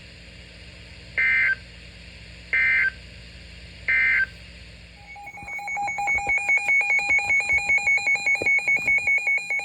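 Three short bursts of EAS SAME digital data tones, about a second and a half apart: the end-of-message code that closes a weather-radio warning. From about halfway through, a rapidly pulsing electronic alert tone pattern starts and runs on, heralding the next alert.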